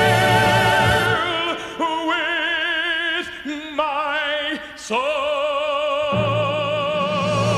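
Gospel hymn performance: a solo voice sings a run of held notes with wide vibrato, sliding up and down between pitches. The low band accompaniment drops out about a second in and returns about six seconds in.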